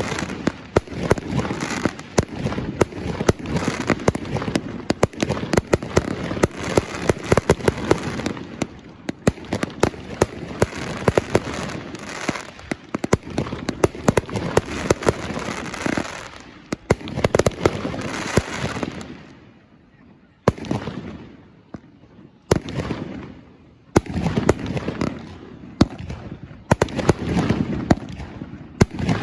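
Fireworks display: a dense run of sharp bangs and crackling over a low rumble, easing to a brief lull about two-thirds through, then single loud bangs starting again.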